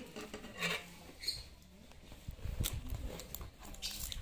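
Cardboard box of clothing scissors being handled and opened: a few light clicks and rustles of cardboard and plastic wrap, then dull thuds and rubbing from about halfway.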